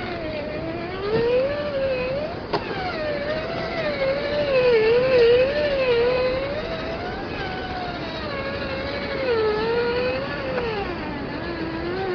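Traxxas TRX-4 Defender 1/10-scale RC crawler's electric motor and gears whining, the pitch rising and falling as the throttle is worked, with a few sharp knocks.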